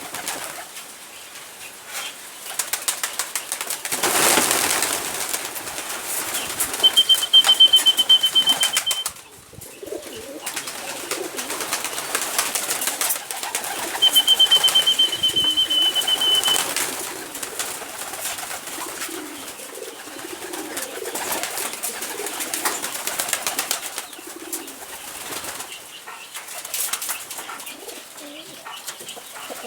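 Chickens feeding at a hanging feeder: soft clucking and murmuring with many quick taps from pecking. Two high trills, each about two seconds long, come about seven and again about fourteen seconds in.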